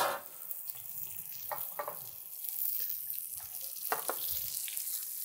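Butter and pork fat sizzling steadily in a frying pan with potatoes and rosemary, with a few light clicks of metal tongs as the pork loin is lifted out.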